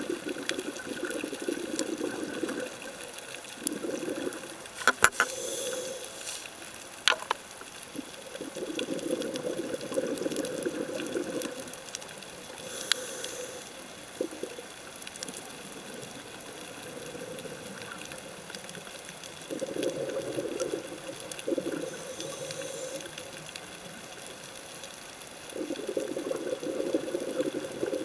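Scuba diver breathing through a regulator underwater: bubbling exhalations lasting two to three seconds, recurring every several seconds, with short high hisses of inhalation between them. Two sharp clicks about five and seven seconds in.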